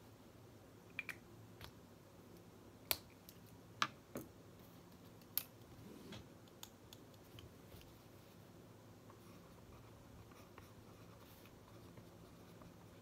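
A few sharp clicks and taps from pens being handled on a desk, bunched in the first half, then faint pen-on-paper writing, all over a low steady hum.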